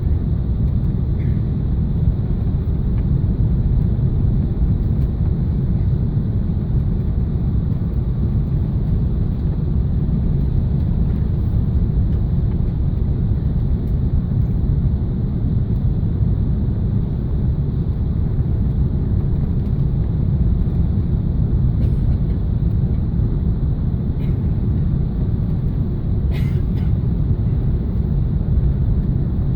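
Steady low rumble of airflow and engines heard inside the cabin of an Airbus A380 airliner, with a faint click about 26 seconds in.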